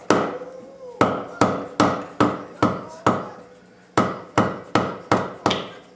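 Hammer blows on a steel rod held against a front disc brake caliper's piston, driving the piston down into the caliper bore. About twelve sharp metal strikes, each with a short ring, come in two quick runs with a pause about three seconds in.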